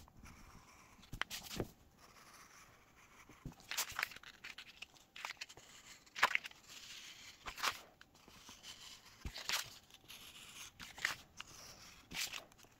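X-Acto hobby knife blade slicing through paper on a cutting mat: short, faint, scratchy strokes at irregular intervals of about one a second as the curved edges are cut out.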